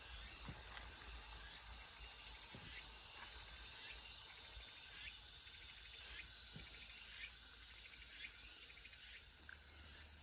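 Insects chirping in short trills that repeat every second or so, faint over a steady hiss.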